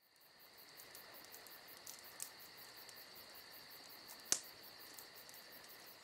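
Faint, high-pitched insect chirring: a steady trill with quick repeating pulses, broken by a single sharp click about four seconds in.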